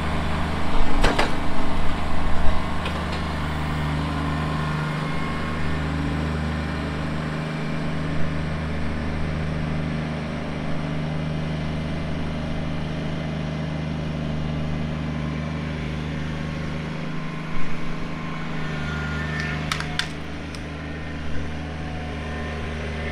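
Kubota BX23S compact tractor's three-cylinder diesel engine running steadily as the tractor works and drives with a grapple load of brush. Loud clattering and crackling about a second in and again near two and a half seconds, and a few sharp clicks near the end.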